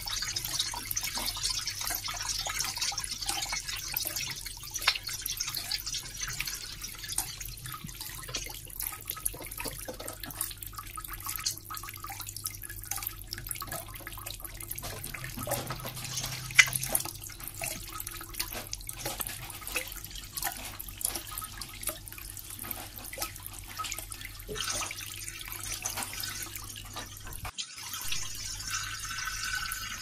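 Running water splashing with many separate drips and plops, over a steady low hum. The sound cuts out for an instant near the end.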